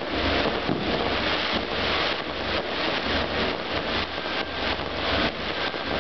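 Low-level fireworks firing: a dense, continuous hiss of spark fountains and comets, broken by rapid irregular pops and crackles several times a second.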